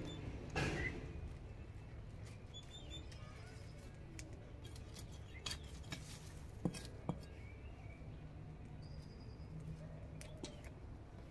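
Quiet scrapes, taps and clicks of a small metal hand trowel and hands working garden soil and a plastic bag, over a low steady background rumble, with a few faint bird chirps.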